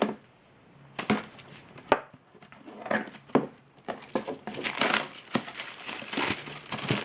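Plastic cellophane wrap on a box of trading cards crinkling and crackling as it is handled, in scattered sharp crackles that grow busier about halfway through.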